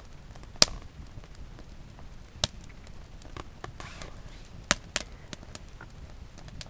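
A few sharp, irregular knocks of hard objects striking, the loudest three coming about two seconds apart, with fainter taps between.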